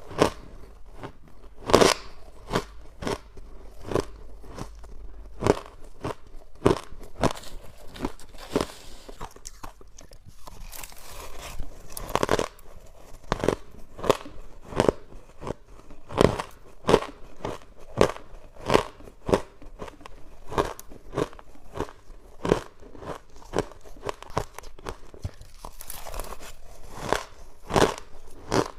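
Close-miked crunching of freezer frost ice being bitten and chewed: a long run of sharp crisp crunches at about one to two a second, with short stretches of softer grinding between bites.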